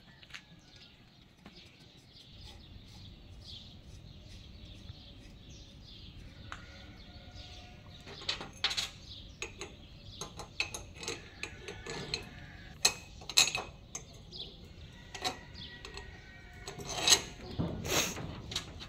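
Irregular metal clinks and knocks from a homemade steel drill-press stand as its lever arm and fittings are worked and handled, starting about eight seconds in and loudest near the end.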